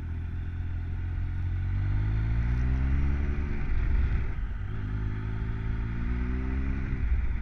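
Triumph Tiger 1050's three-cylinder engine, heard from the rider's helmet, pulling out of a roundabout. It rises in pitch, drops at a gear change about four seconds in, then rises again through the next gear, over a steady hiss of wind and road noise.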